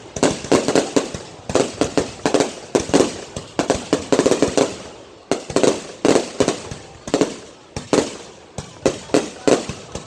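Fireworks exploding in rapid volleys of sharp bangs, each cluster trailing off, with brief lulls about five seconds in and again near the end.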